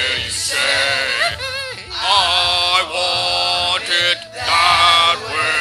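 Pop song with a male voice singing over backing music; the sung lines waver and bend in pitch.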